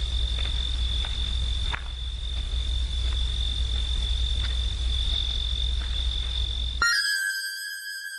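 Crickets trilling steadily in the night, over a low rumble. About seven seconds in, this cuts off abruptly and a sustained electronic synthesizer tone takes over.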